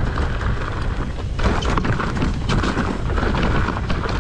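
Mountain bike descending a rough, rutted dirt trail: wind rushing over the microphone and tyres rumbling, with many sharp knocks and rattles as the bike hits bumps.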